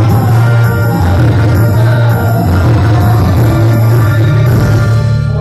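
A man singing through a microphone over loud amplified backing music with a strong, steady bass.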